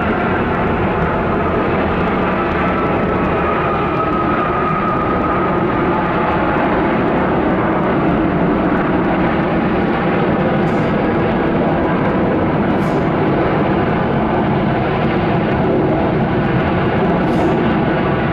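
UPS Boeing 767-300F freighter's jet engines running as it rolls out on the runway after landing: a steady, loud rumble, with a faint whine a few seconds in.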